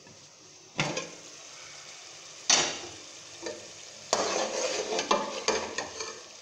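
Keema sizzling as it fries down with its spices in an aluminium pot, with sharp metal clanks about a second in and again at about two and a half seconds as the lid comes off. In the second half a ladle clatters and scrapes against the pot as the keema is stirred.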